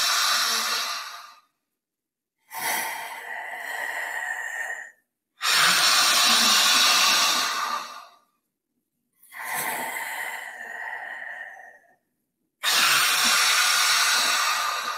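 A woman doing yogic lion breath: forceful breaths in and out through the wide-open mouth with the tongue stretched out, each one a long hiss of about two and a half seconds. Louder and softer breaths alternate, with short silent gaps between them.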